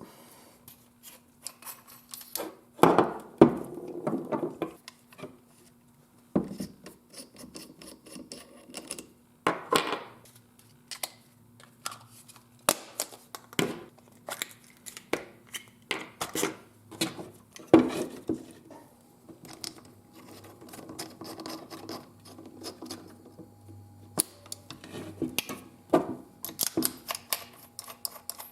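Hand rivet-nut (nutsert) tool and metal parts being handled: irregular metallic clicks, clinks and rubbing, with a few sharper knocks, as a nutsert is threaded onto the tool and crimped into the door's handle hole.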